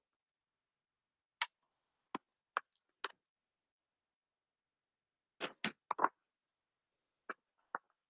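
About ten short, scattered clicks and taps from handling a picture book as its pages are held up and turned, with nothing audible between them.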